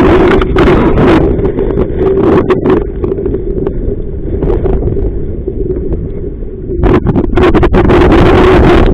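Strong wind buffeting the microphone in gusts, easing in the middle and surging again near the end, with sharp crackling bursts over a steady low drone.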